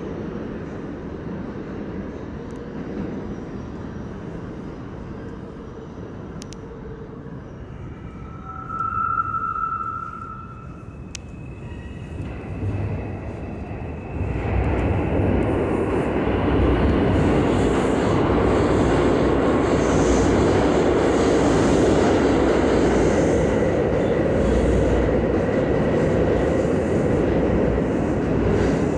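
New York City subway train coming into the station. For the first half there is a lower, steady rumble with a short high tone about a third of the way in. About halfway through, the train's rumble and rail noise grow suddenly loud and stay loud as the cars roll past.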